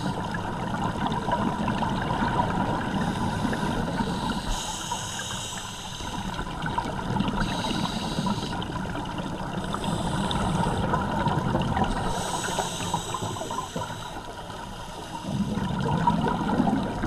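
Scuba diver breathing underwater through a regulator: recurring hissy inhales and bubbling, rumbling exhales that rise and fall every few seconds.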